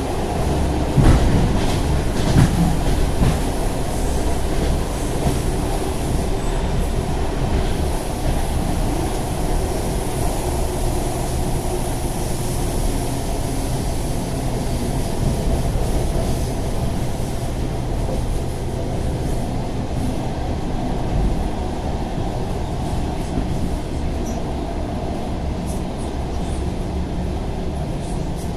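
ED4M electric multiple unit running along the track: a steady rumble with a few sharp knocks from the rail joints in the first few seconds and a faint low hum through the middle, heard from aboard the train.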